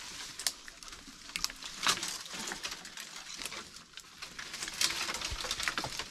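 Oak leaves and twigs rustling, with dense irregular crackles and taps as the leafy branches are moved.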